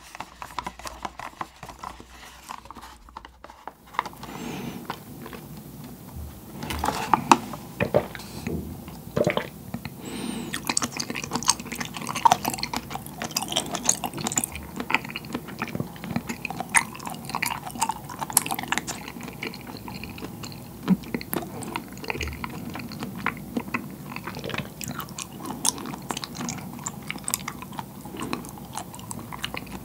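Close-miked chewing of chewy white bubble-tea pearls, which are made from seaweed and have a firm, jelly-like bite: irregular wet squishing and clicking in the mouth. It is sparse for the first few seconds, then dense.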